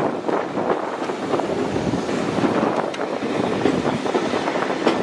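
Heritage steam-hauled passenger coaches rolling along the track into a station, wheels and running gear clattering and rattling in an irregular stream, with wind buffeting the microphone held out of the window.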